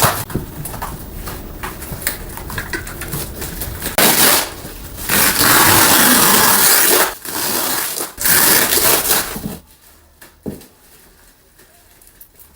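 Rough scraping and rubbing from handling the treadmill's shipping packaging, with small clicks and rustles at first. It gets loudest in long stretches from about four to nine and a half seconds in, then drops much quieter.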